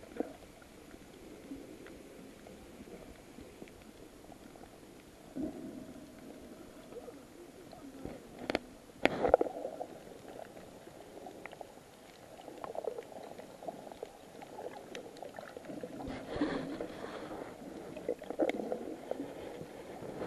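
Muffled underwater sound picked up through a camera's waterproof housing: irregular swells of water noise, with a pair of sharp clicks about nine seconds in.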